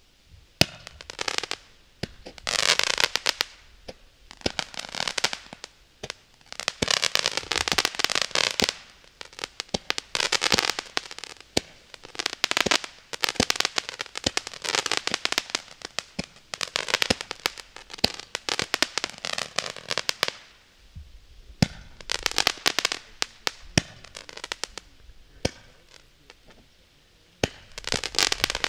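A 10-ball crackling Roman candle firing its shots one after another, roughly every two seconds. Each ball goes off with a hiss that sweeps in pitch, under a dense spray of sharp crackling pops. There is a longer pause between shots about two-thirds of the way through.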